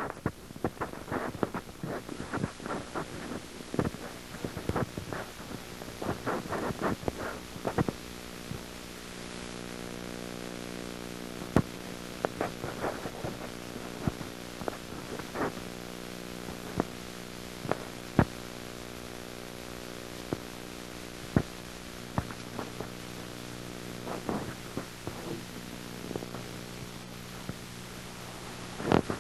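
A dense run of clicks and crackles, then a steady low hum with even overtones that sets in about a quarter of the way through. Sharp isolated clicks keep sounding over the hum.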